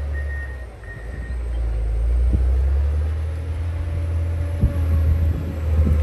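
John Deere 670GP motor grader's diesel engine running with a deep, steady rumble. A high reversing alarm beeps twice at the start, then stops. A few short knocks sound later on.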